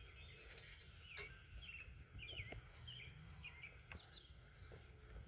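Faint bird chirps, a string of short calls through the middle, over a low background hum, with two light clicks, one about a second in and one near four seconds.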